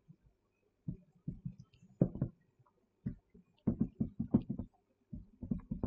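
Marker writing on a whiteboard: irregular clusters of short taps and scrapes as letters are written, with brief pauses between words.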